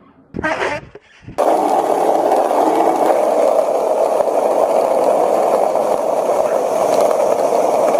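Skateboard wheels rolling steadily over street pavement, an even rumbling noise that starts abruptly about a second and a half in.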